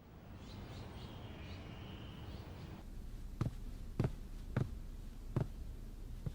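Footsteps: sharp single steps, one about every half second to second, starting about halfway through, over faint background hiss with a few soft high chirps early on.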